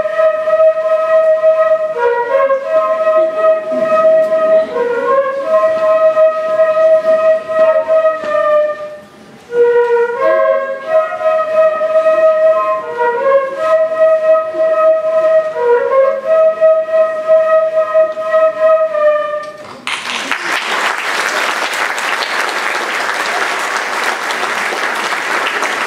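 A small group of young flute players plays a simple melody together, in two phrases with a short break about nine seconds in. The tune ends about twenty seconds in, and the audience applauds.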